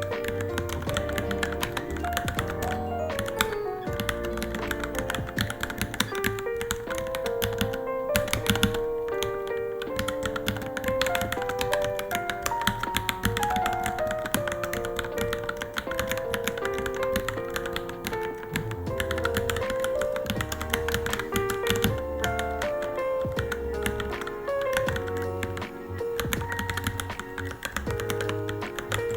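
Fast, continuous typing on a Varmilo Minilo mechanical keyboard: a dense stream of key clicks with no pauses. Background music with a melody and bass plays under it.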